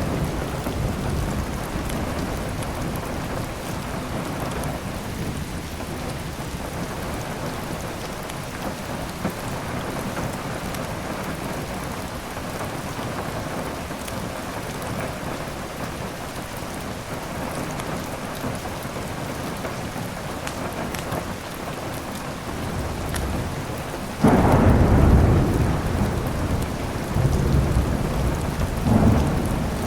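Steady heavy rain with thunder rumbling low. A loud thunderclap breaks in suddenly about three-quarters of the way through, and further rumbles follow near the end.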